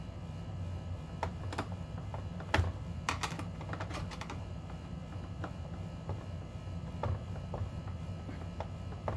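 Irregular light clicks and taps of plastic HVAC housing parts being handled and fastened, the loudest knock about two and a half seconds in and a quick cluster just after, over a steady low hum.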